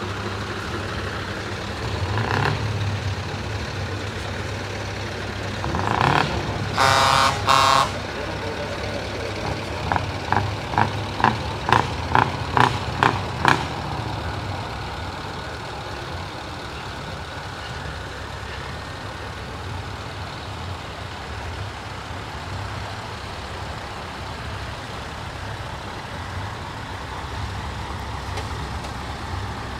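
Truck diesel engines running steadily, with a loud horn blaring twice around seven seconds in, then a quick run of about nine short pitched beeps over the next few seconds.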